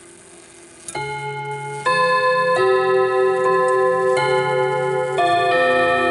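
Hammers of a French MF wall clock's chime movement striking its tuned gong rods, playing a chime melody one note after another, about one note every three quarters of a second, each note ringing on under the next. The chiming starts about a second in, after a quiet stretch holding only the faint ring of earlier notes.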